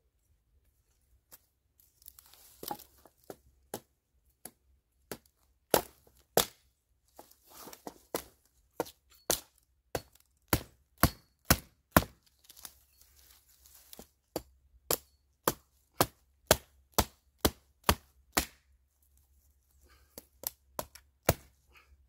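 A small hatchet chopping a branch on the ground: a string of sharp wooden chops. They come sparsely at first, then about two a second for some ten seconds, and after a short pause a few more strikes come near the end.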